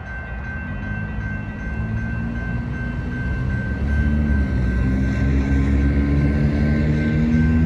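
Diesel locomotives of an approaching CSX freight train, their engines' low hum growing louder and stronger about four seconds in as the train draws near. A steady, high, regularly repeating ring sounds over it, typical of a grade-crossing bell.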